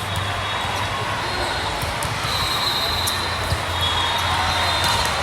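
Busy sports hall din during volleyball play, with a couple of sharp hits of the ball a little past the middle.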